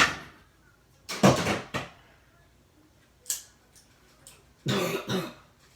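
Handling noise from a dismantled smoke alarm: a few sharp knocks and short clattering, scraping bursts of its plastic and circuit-board parts, in separate groups with quiet gaps between.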